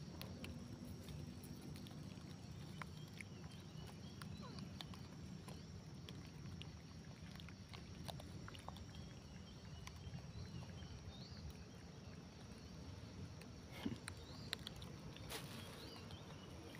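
Faint outdoor ambience around a troop of long-tailed macaques foraging on dry grass litter. A low steady rumble runs under scattered small clicks and rustles, with a few brief high chirps.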